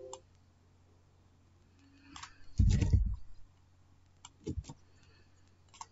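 Computer keyboard keys clicking in a few short, scattered bursts of typing, the loudest cluster about two and a half seconds in.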